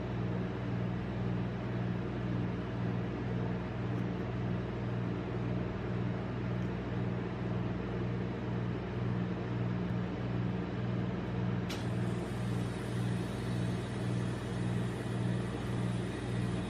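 Steady low mechanical hum of a rolled-ice-cream machine's cold-plate refrigeration compressor running.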